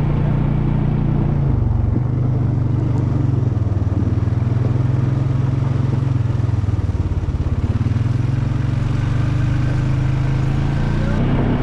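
All-terrain vehicle engine running steadily on the move, its low pitch sagging and recovering a couple of times, with the sound shifting slightly just before the end.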